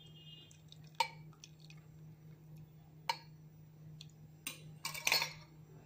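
Light metal clinks of a steel tea strainer and pouring pan against the rim of a steel pressure cooker as brewed tea is strained into it: a few sharp clinks spread over several seconds, the loudest about a second in, and a short clatter near the end.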